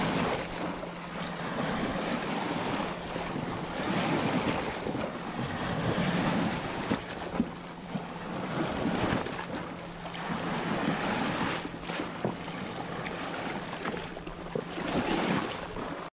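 Sea waves breaking and washing over shoreline rocks, the surf swelling and easing every few seconds.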